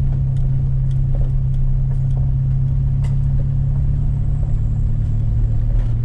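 Pickup truck driving, heard from inside the cab: a steady low drone of engine and road noise, with a few faint ticks.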